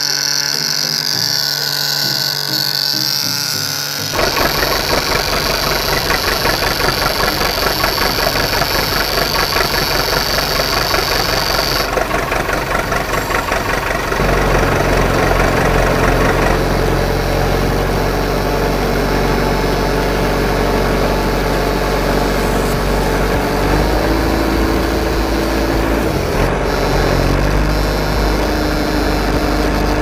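Tractor-style engine running sound with a fast, even chug, settling into a steadier low idle about halfway through; a thin high whine sits over the first few seconds.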